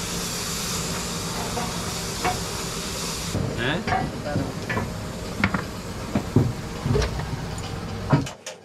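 Air spray gun hissing as it sprays paint onto a sewing machine body, stopping about three seconds in. After that a steady low hum carries on with scattered knocks and clatter, then cuts off just before the end.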